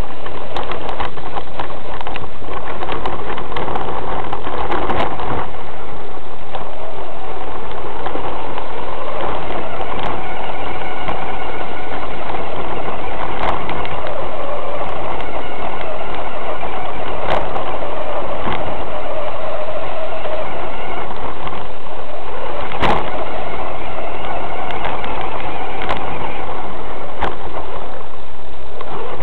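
1/6-scale RC Hummer driving over rough ground, heard from a camera mounted on the truck: its drivetrain runs loud and constant, with frequent knocks and rattles as it bumps over gravel and dirt and pushes through weeds.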